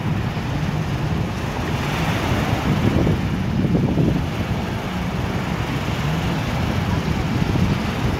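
Jet ski engine running, its pitch rising and falling as it throttles and turns, with wind buffeting the microphone and waves washing.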